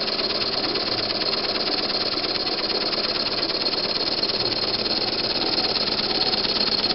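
Homebuilt double-acting oscillating steam engine running fast under load, chuffing with a rapid, steady beat as it drives a generator by a belt.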